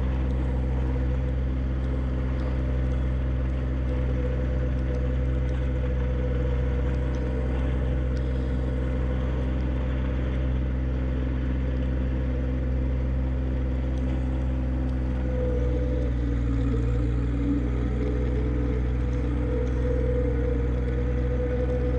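John Deere 1025R subcompact tractor's three-cylinder diesel engine running steadily while plowing snow, with a whine over the engine note that wavers in pitch in the second half.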